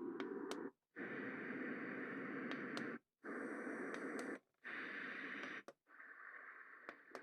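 White-noise alarm clock's small speaker playing its soothing noise sounds, switching to a different hiss-like sound about every one to two seconds with a brief silent gap between them. Faint clicks are heard along the way.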